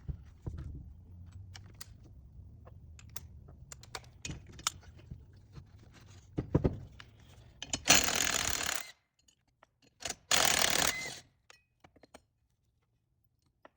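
Small metal engine parts and hand tools clicking and clattering during the teardown of a small engine, with two loud hissing bursts of about a second each past the middle.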